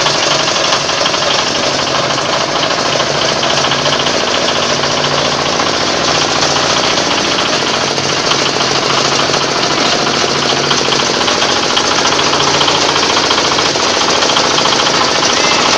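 Organic compost grinder running steadily: a dense, rapid mechanical clatter over a steady low hum.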